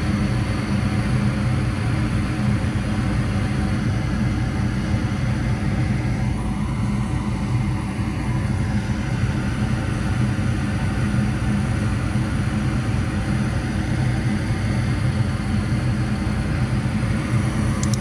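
Goodman gas furnace running in its heating cycle: the inducer draft motor and lit burners give a steady rumble with a low hum.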